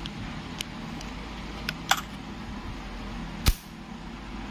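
Small clicks of a screwdriver and parts on the mechanism of an opened moulded-case circuit breaker, then one sharp, loud snap about three and a half seconds in, over a steady low hum.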